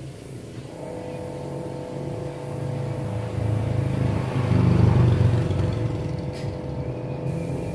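A motor vehicle engine running, swelling to its loudest about five seconds in and then easing off, with a steady hum that starts about a second in.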